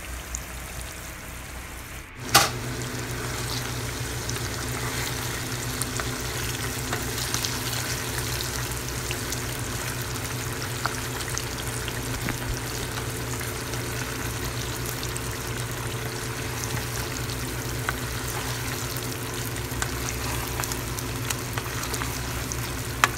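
Green mango pickle in a thick syrupy liquid simmering and sizzling in a nonstick pan on medium heat, with occasional light scrapes of a wooden spatula stirring it so it doesn't stick to the bottom. A sharp click about two seconds in, after which a steady low hum runs underneath.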